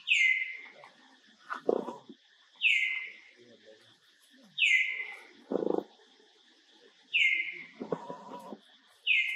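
Animal calls: a high call falling in pitch, repeated five times about every two seconds, with three lower, rougher calls in between.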